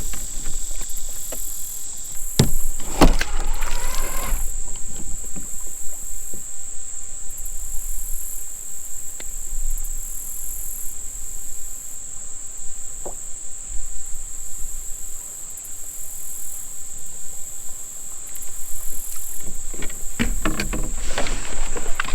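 A steady, high-pitched drone from an insect chorus, under a low rumble with a few sharp knocks, the loudest of them about three seconds in.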